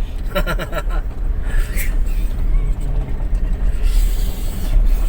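Steady low rumble of a moving vehicle's engine and road noise while driving, with a brief voice about half a second in.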